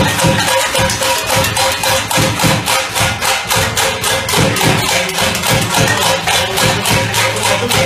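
Live band playing an up-tempo number, with a steady, fast drum beat running under it.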